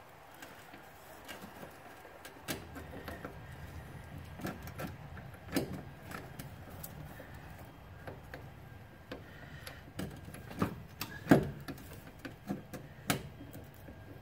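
Irregular metallic clicks and knocks as a motor mount is worked into line with its studs and the nuts and bolts are started by hand in a car's engine bay. The sharpest knock comes about 11 seconds in, over a faint low hum that comes in a couple of seconds in.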